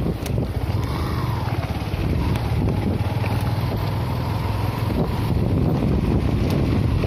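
Motorcycle riding over a rough gravel road, its engine running steadily under heavy wind noise on the helmet microphone.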